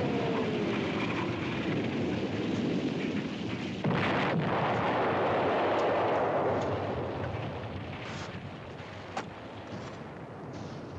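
Incoming artillery shell whistling down in pitch, then exploding about four seconds in, the blast rumbling and slowly fading. A few short sharp cracks follow near the end.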